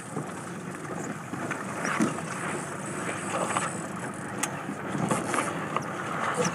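Small coach boat's motor running slowly on open water, under a steady wash of water noise, with a few faint sharp clicks.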